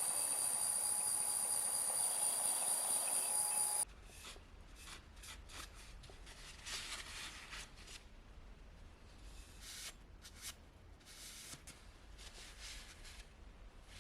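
A steady, high-pitched machine whine with hiss stops abruptly about four seconds in. Quieter, irregular scraping and rubbing strokes follow.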